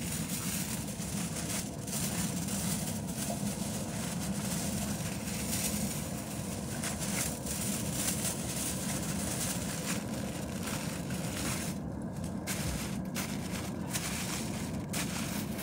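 Aluminium foil crinkling and rustling in irregular crackly bursts as it is folded and pressed around a roasting tray, over a steady low rumble.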